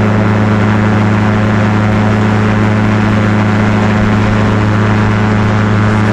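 Light aircraft engine and propeller running at a steady cruise, with wind rushing over the microphone in the open cockpit.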